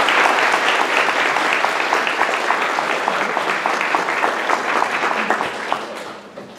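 Audience applauding. The clapping slowly thins and dies away near the end.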